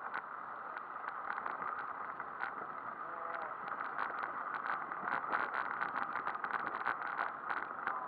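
Bicycle rolling over a gravel road, heard from a camera fixed to the bike: a steady crunching rumble of tyres on loose gravel with frequent clicks and rattles of the bike, growing denser about halfway through.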